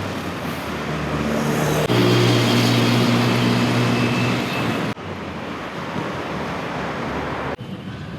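Road traffic: a steady rush of engines and tyres, with a low engine hum standing out in the middle, changing abruptly a few times as different street recordings follow one another.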